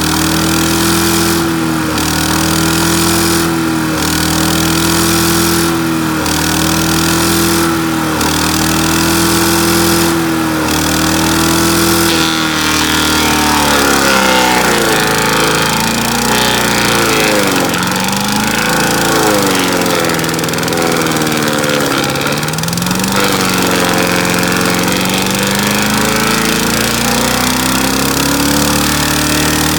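Small gas engine of a wood chipper running at speed, with brief dips about every two seconds. About halfway through, its pitch drops and wavers as it labours under load. Near the end it climbs back up to full speed.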